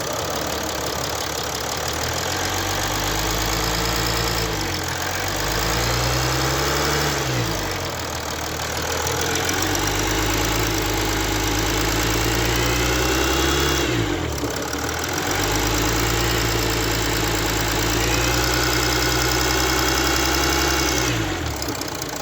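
Mercedes OM642 3.0 V6 diesel engine running and revving up and down several times, with a thin high-pitched whistle that rises and falls with the revs, plainest in the second half. The owner hears this whistle in the cabin only with the engine warm, at low speed on the throttle, and does not know whether it is normal.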